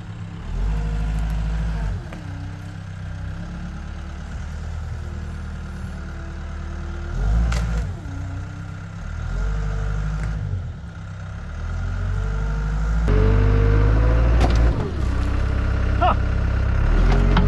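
Caterpillar 252B skid steer's diesel engine working under load as it pushes against a dead tree that won't go over, its pitch rising and falling again and again as the throttle and load change. A couple of sharp knocks stand out partway through.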